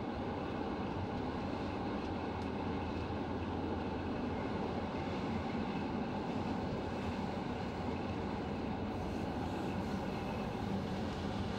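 Steady running noise of a moving Venice Simplon Orient Express passenger carriage, heard from inside the compartment.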